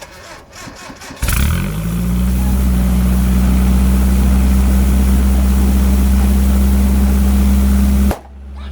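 Straight-piped truck engine cranking briefly, then catching about a second in and running steadily loud at idle through the open exhaust. The loud exhaust noise drops off abruptly near the end, leaving a quieter low engine hum.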